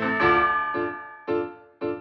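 Background keyboard music: a chord held through the first half-second or so, then single struck chords about half a second apart, each dying away.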